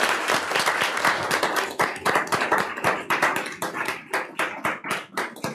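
A small group applauding by hand. The clapping is dense at first and thins out to scattered single claps toward the end.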